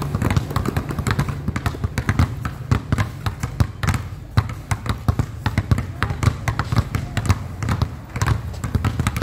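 A basketball dribbled low and fast on a concrete court: a quick, even run of bounces, several a second.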